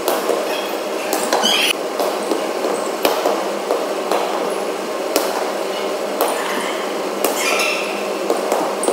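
Volleyball being struck by hands, with sharp hits about once a second and short high-pitched sounds between them, all sped up as in fast-forward playback.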